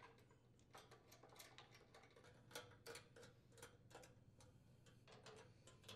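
Faint clicking of a socket ratchet, a few clicks a second, as it backs out the 10 mm bolts holding the starter housing on a Briggs & Stratton small engine.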